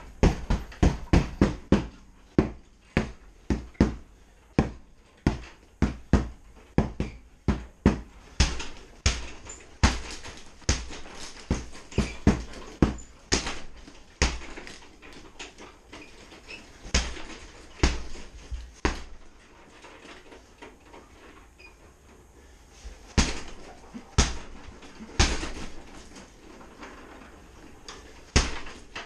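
A hanging heavy punching bag struck over and over, each hit a sharp thud: a fast flurry of about three a second at first, then spaced hits, thinning out past the middle and picking up again near the end.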